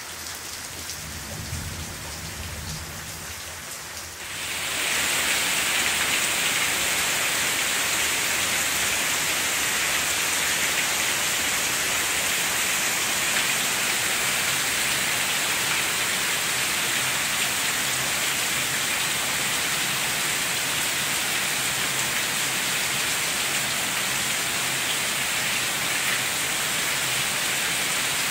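Steady rain falling. About four seconds in it grows markedly louder, with a bright hiss, and then holds steady.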